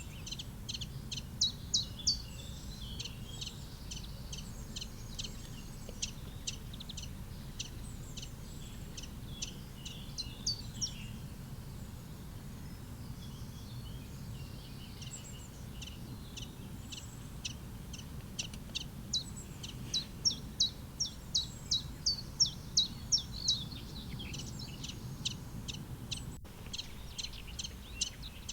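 Common chiffchaff singing close by: runs of sharp, repeated high 'chiff-chaff' notes, several a second, in phrases separated by pauses, with a long lull in the middle. A steady low outdoor rumble lies underneath.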